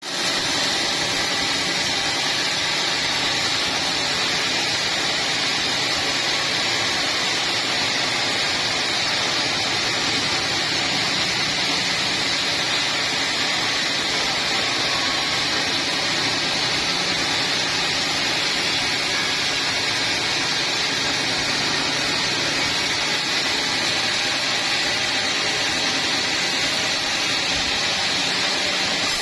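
Sawmill machinery running steadily at an even level, with a constant hiss-like whine and no breaks or changes.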